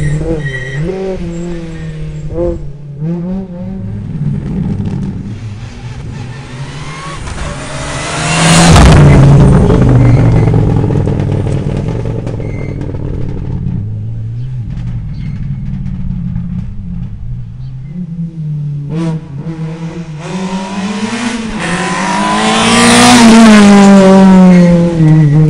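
Rally cars driving hard past at close range, one about nine seconds in and another about twenty-three seconds in. Each engine note climbs to a loud peak as the car goes by, with the pitch jumping as the driver shifts gear and lifts off, then falls away. Between the two passes an engine fades into the distance.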